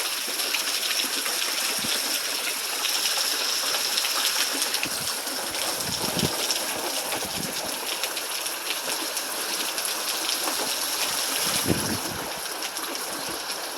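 Steady hiss of rain and running water, with a few low gusts of wind buffeting the microphone.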